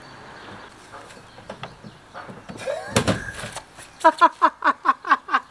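A pickup tailgate drops open and stops with a single clunk about three seconds in. A man then laughs hard in a quick run of about eight 'ha' bursts.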